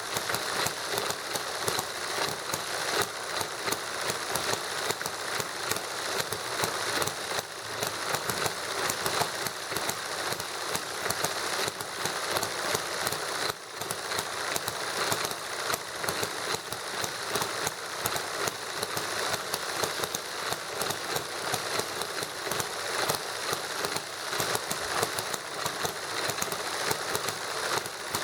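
Small model hit-and-miss gasoline engine running alongside a model Stirling engine: a steady rapid clatter of clicks with irregular louder pops.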